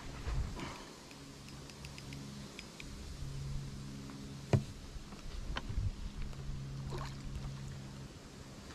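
Hooked carp being played on a fixed-spool reel: a low whirring in spells as the reel is wound, with splashing and a few sharp knocks, the loudest about four and a half seconds in.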